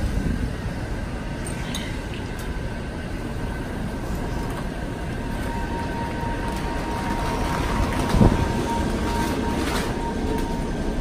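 Power wheelchair driving, with a steady mechanical hum and a thin whine that comes in about halfway through. There is a brief louder swell a little past the middle.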